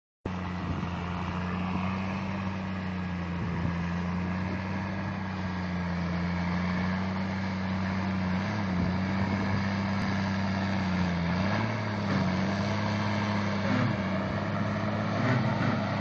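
Diesel engine of a Case IH Quadtrac four-track tractor running under load while pulling a disc tillage implement through the field, a steady drone. Its pitch dips briefly several times in the second half, and it grows slightly louder as the tractor comes closer.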